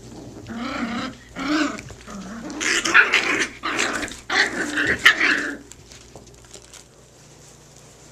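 Jack Russell terrier puppies growling as they play-fight, in a run of rough growls that lasts about five seconds and is loudest near the middle.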